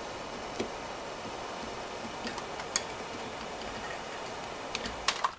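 Steady hiss of a barbecue-lighter torch flame heating a pinion gear on a motor shaft, expanding it so it can be worked off, with scattered small metallic clicks. A few louder clicks come near the end, just before the hiss cuts off suddenly.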